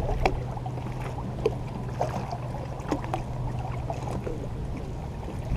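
Water lapping and splashing around a float tube, with scattered small clicks and splashes over a steady low hum like a boat motor running in the harbor.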